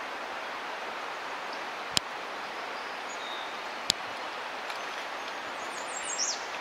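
Steady rush of river current flowing over a rocky bed, with two sharp clicks about two seconds apart, and a few brief high chirps near the end.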